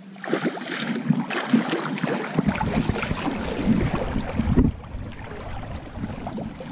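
River water splashing and churning hard close by, the thrashing and splashing of a hooked king salmon being netted in shallow water. It drops off sharply after about four and a half seconds to a quieter lapping of water.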